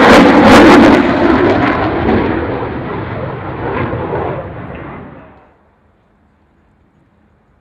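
Dassault Rafale jet noise, loud and crackling, fading away over about five seconds, then cut off suddenly.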